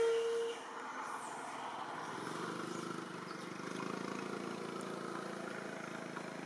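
A brief loud steady tone at the very start, then a distant engine running steadily, building up about two seconds in and easing off near the end.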